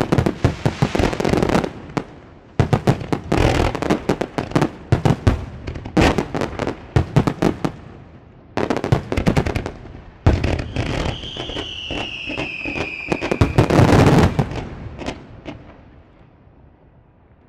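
Fireworks display: rapid volleys of bangs and crackling from bursting shells, in clusters with short gaps. About ten and a half seconds in, a high whistle sounds for about three seconds, falling slightly in pitch. The loudest volley comes just before fourteen seconds, and the bursts thin out and stop about sixteen seconds in.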